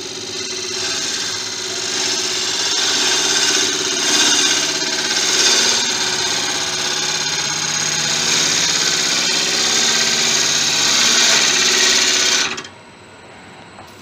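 Turning gouge cutting into a wood blank spinning on a Laguna 1836 lathe: a steady shearing hiss of shavings over the lathe's hum. It stops suddenly about twelve and a half seconds in, as the tool comes off the wood.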